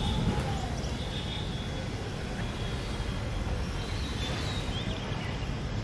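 Steady outdoor background rumble, a low even noise like distant traffic, with a few faint high chirps.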